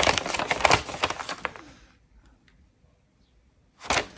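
A sheet of paper rustling and crinkling as it is handled and folded, fading out about halfway through, then a short, loud crinkle near the end.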